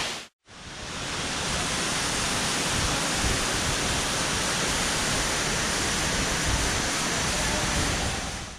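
Steady, even rush of water falling at a multi-tiered waterfall, starting after a brief gap of silence.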